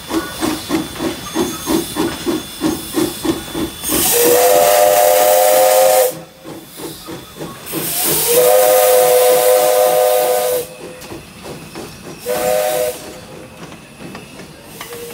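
Jeddo Coal Co. 85 steam locomotive working away with rhythmic exhaust chuffs, about four a second, then sounding its whistle, a chord of several notes with a hiss of steam: two long blasts, a short one, and a fourth starting at the end, the long-long-short-long pattern of a grade-crossing signal.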